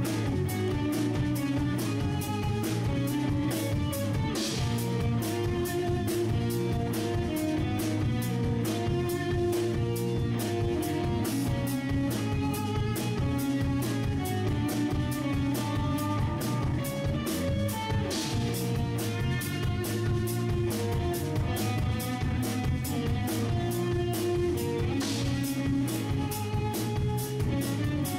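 Instrumental progressive rock played on guitars and a drum kit: a steady drum beat under held guitar notes, with bright crashes about four seconds in and twice more in the second half.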